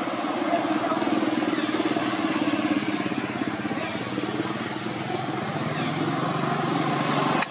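A motor vehicle engine runs steadily, its hum dropping lower in pitch for the last couple of seconds. It cuts off suddenly near the end.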